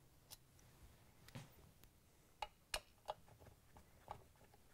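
Faint, irregularly spaced clicks and ticks of a Phillips screwdriver turning out the cover screws of a KitchenAid stand mixer, about half a dozen of them.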